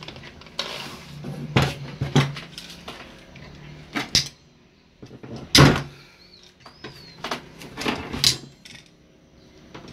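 Sharp metal clicks and clanks of hand tools at a bench vise: locking pliers are clamped and worked on a handbrake cable terminal to pull out trapped leftover metal. About nine separate knocks, the loudest about halfway through, over a low hum in the first half.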